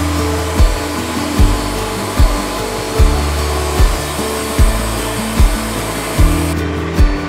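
Background music with a steady beat, a thump about every 0.8 seconds over held bass notes, over the steady hiss of a Wood-Mizer LT40 band sawmill cutting a log. The high hiss drops away near the end.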